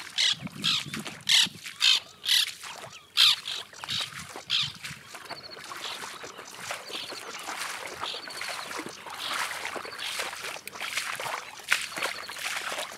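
Birds calling over and over, about twice a second, for the first four seconds or so. Then a steady swishing of water as a person wades through shallow flooded grass, growing louder as he comes closer, with a few short bird calls over it.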